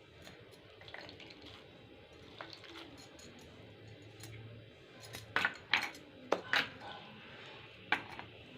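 A few light clinks and taps of dishes and utensils: a cluster about five to six and a half seconds in, and one more near the end, over faint room noise.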